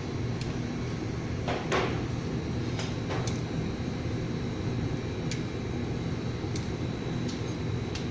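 Steady mechanical hum with a faint high whine, broken by scattered sharp clicks and knocks, the loudest and longest about one and a half seconds in.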